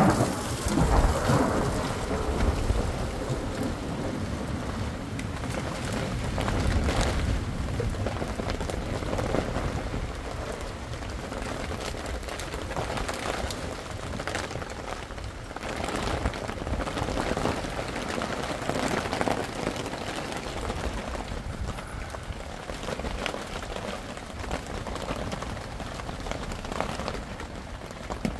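Steady rain falling, with low rolls of thunder that swell and fade, the loudest in the first couple of seconds.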